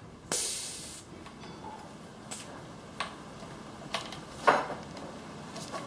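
A short hiss about a third of a second in that fades within a second, the pressure being let out of a compression tester, followed by a few sharp clicks and knocks from handling the tester. The loudest click comes about four and a half seconds in.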